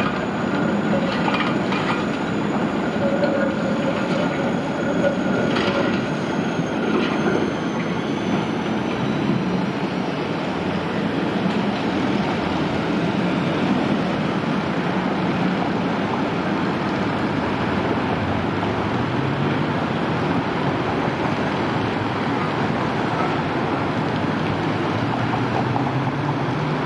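Škoda 19T low-floor tram crossing a junction: steel wheels clacking over the rail joints and squealing on the track, with a high electric whine falling in pitch as it moves away during the first several seconds. After that, steady street noise, with a low hum rising in pitch twice in the second half as a Moderus Beta tram approaches.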